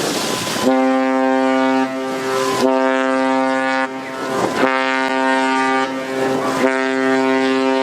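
Cruise ship's horn sounding the muster signal: a deep, steady horn note in repeated blasts, starting under a second in and breaking off briefly about every two seconds. Wind on the microphone is heard before the first blast and in the gaps.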